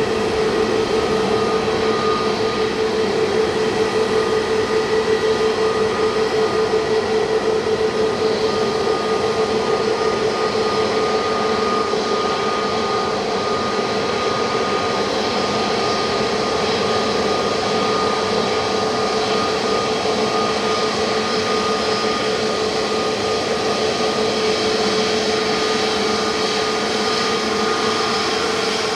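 Jet airliner engines running with a steady rushing noise and a steady whine, easing off slightly after the middle.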